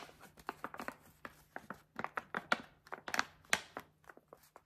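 Small empty Lindt Lindor chocolate bag crinkling as it is handled in the fingers: an irregular run of sharp crackles that stops shortly before the end.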